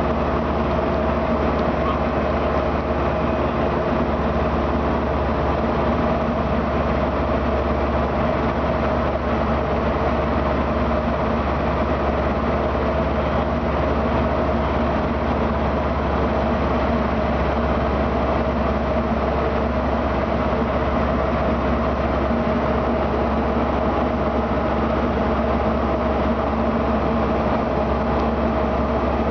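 Diamond DA40 light aircraft's piston engine and propeller running steadily in flight, heard inside the cockpit as a constant drone with several steady tones over a noise floor.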